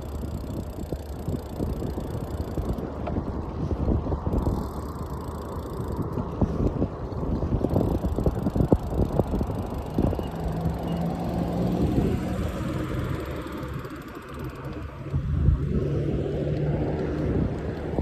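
Wind buffeting the microphone and the rattle of a bike on the move. About ten seconds in, the steady hum of a motor vehicle's engine joins, fades briefly and comes back.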